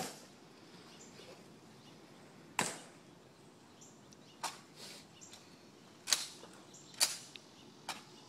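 Sharp clicks of a Tomb Guard sentinel's metal-tapped heels striking the stone plaza as he marches: six separate clicks, unevenly spaced, one to two seconds apart.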